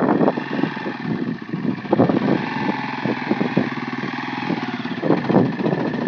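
Kawasaki Mojave 250 quad's single-cylinder four-stroke engine running as it crawls through a mud puddle, the throttle opened in surges about two and five seconds in and held steadier between.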